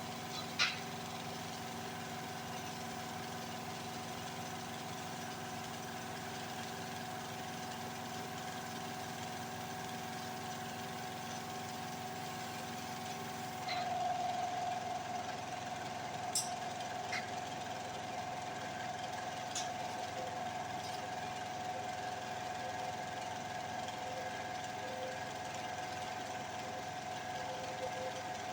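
Steady mechanical hum of several fixed tones, with a few faint clicks. A stronger, higher tone joins about fourteen seconds in and holds to the end.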